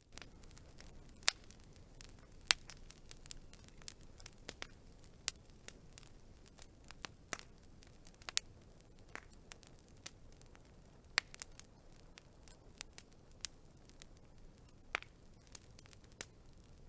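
Wood fire crackling: irregular sharp pops and snaps over a soft steady hiss, with a few louder snaps, two of them within the first few seconds.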